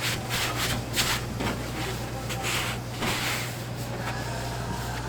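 Dough being rubbed and rolled by hand on a wooden work surface: a series of short, uneven rubbing strokes, over a steady low hum.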